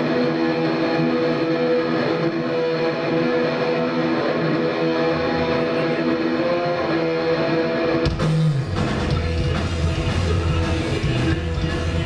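Live rock band at a sound check. Electric guitars ring with sustained chords, then about eight seconds in the drums and bass come in and the full band plays loud together.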